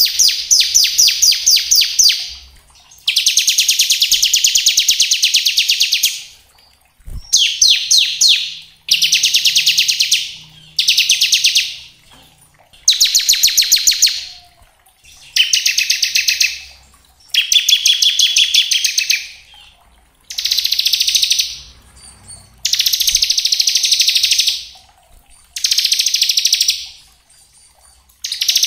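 Bar-winged prinia (ciblek) singing its fast 'ngebren' song: high-pitched rattling trills of one to three seconds each, repeated about a dozen times with short pauses between.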